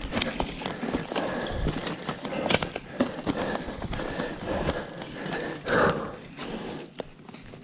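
Mountain bike rolling over rough off-trail ground, with frequent irregular knocks and rattles.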